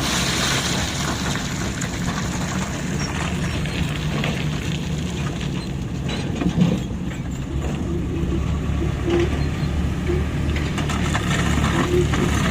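Heavy diesel machinery engine running steadily, with scattered light knocks and a louder thump about six and a half seconds in.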